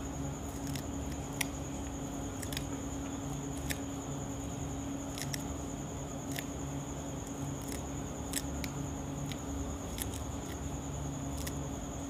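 Knife cutting through a handful of fresh coriander, making about a dozen short, irregular clicks and snips. A steady hum and a thin high whine run underneath.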